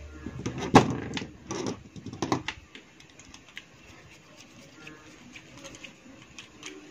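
Clicks and knocks of plastic and metal parts being handled as a crimped wire terminal is fitted to a panel indicator lamp's screw terminal, with a screwdriver working the terminal screw. The sharpest knocks come in the first two and a half seconds, the loudest a little under a second in, then only faint ticks.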